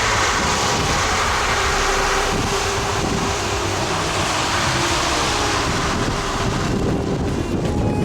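Strong wind blowing across the microphone, a steady dense rush of noise with no let-up.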